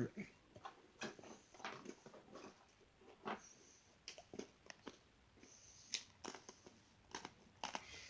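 Cookies being chewed: quiet, irregular crisp crunches and bites.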